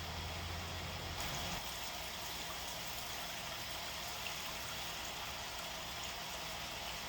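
Liquid pouring steadily, as diluted purple degreaser is run into an ultrasonic cleaner's tank. A low hum stops about a second and a half in.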